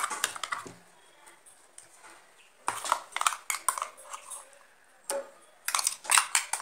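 A metal spoon scraping and clinking against a steel bowl while thick spice paste is scooped out onto boiled cauliflower. It comes in four short bunches of clicks and scrapes with quiet gaps between.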